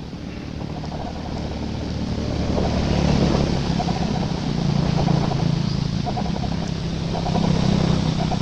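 A motor engine running steadily in the background, its low hum growing louder about two seconds in and swelling a few times.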